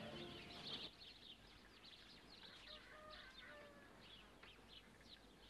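Faint birdsong: small birds chirping in quick, short high notes with a few whistled calls, a rural morning ambience. Soft music fades out about a second in.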